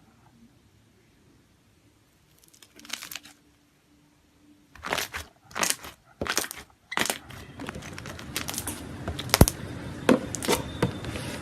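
Slime being squeezed and stretched by hand: a few short separate bursts of sound starting about three seconds in, then from about seven seconds in a continuous noisy run of small sharp clicks and pops.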